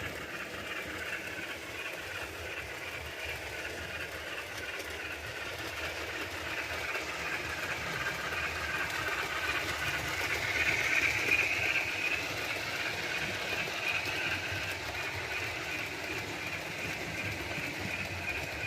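Model steam locomotive with a DCC sound decoder running on a layout, its running sound and wheels on the track steady, swelling to its loudest about eleven seconds in and then easing off.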